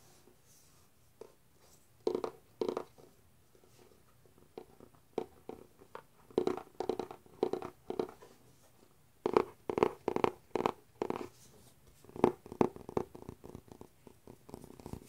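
Fingernails tapping and scratching on a cardboard model-kit box, in irregular clusters of quick taps that start about two seconds in.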